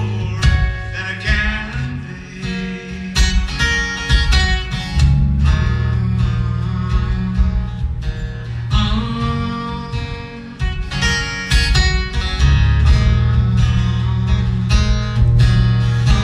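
Acoustic guitar played solo, with ringing low bass notes under quick, sharply picked melody notes.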